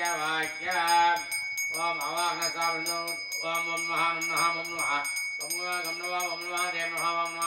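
Tamil devotional song: a voice sings a slow, wavering melody in long held phrases over a steady jingling beat.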